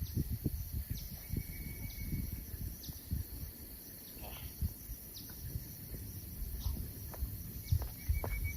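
Steady high-pitched insect chorus, with irregular low thumps and rustling close to the microphone.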